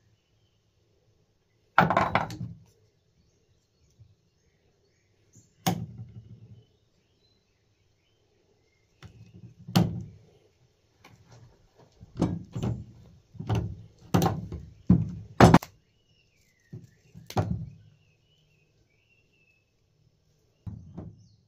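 Irregular knocks and thuds, about a dozen in all, from a heavy battery cable, its copper lug and hand pliers being handled and set down on a work table. They come most closely together about twelve to sixteen seconds in.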